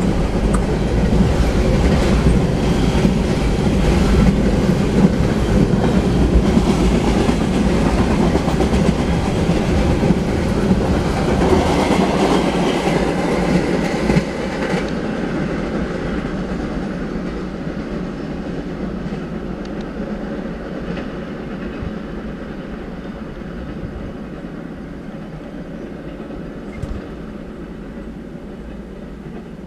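Double-stack container freight train's cars rolling past on the rails, loud at first; the end of the train passes about 13 seconds in and the rolling sound fades steadily away.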